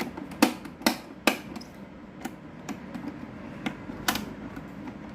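2006 Hanil electric fan: a series of sharp clicks, three loud ones in the first second and a half and then several lighter ones, over the steady low hum of the fan running.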